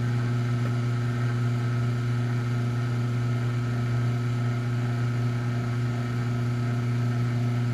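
Garage door opener motor running steadily under a repaired logic board: a steady hum with a faint high whine above it.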